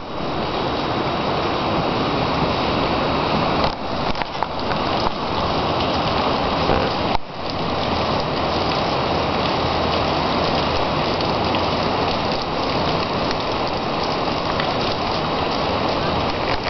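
A steady, even rushing hiss of water, dipping briefly twice, about four and seven seconds in.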